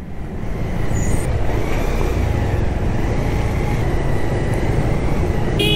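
Wind and road noise on a camera riding a moving motorcycle, a steady rushing rumble. Near the end a vehicle horn honks in several short beeps.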